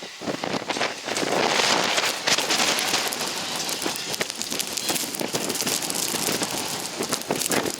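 Blizzard wind driving snow against the microphone: a constant crackling hiss that swells and eases with the gusts.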